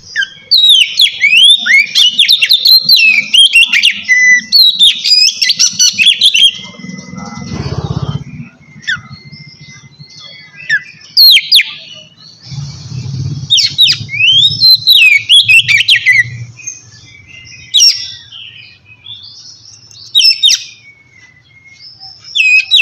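Oriental magpie-robin (kacer) singing in loud bursts of rapid, varied whistled phrases, densest at first and then broken by pauses. Twice a low rumble sits under the song.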